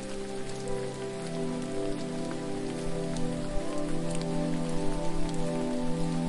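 Steady hiss of falling water with scattered drip-like ticks, under soft sustained low musical chords that shift every second or two.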